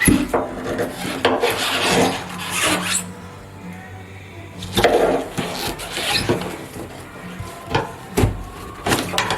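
Water-saturated foam being scraped and pried loose from a boat hull: rough scraping and tearing in several bursts, the loudest early on.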